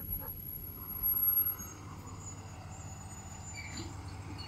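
School bus engine running low and steady as the bus pulls up, with a high, steady insect trill over the first couple of seconds and a brief louder rush about a second in.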